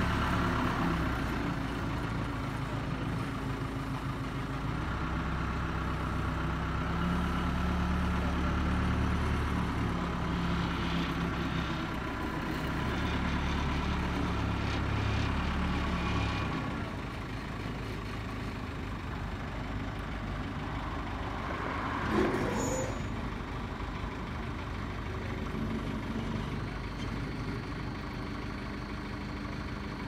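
Backhoe loader's diesel engine running as the machine drives across a dirt yard, a steady hum that gets quieter after about sixteen seconds as it moves away. A short, louder noise cuts in about two-thirds of the way through.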